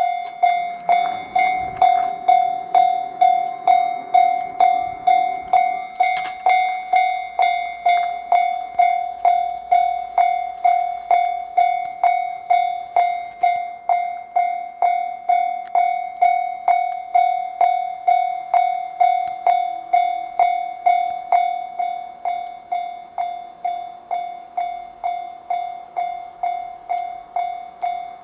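Japanese level-crossing warning bell ringing its steady clanging tone, about one and a half strikes a second, signalling a train on the line. A low rumble of the passing train sits under it for the first few seconds.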